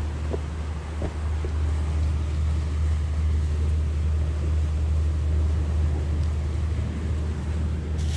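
Steady low rumble of wind buffeting the microphone, with a few faint handling clicks in the first second and a half.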